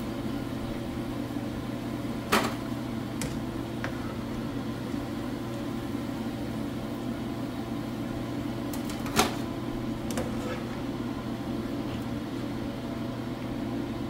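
A metal mesh skimmer lifts fried pakoras out of hot frying oil, with sharp clinks of the skimmer against the pan about two seconds in and again around nine seconds, over a steady low hum.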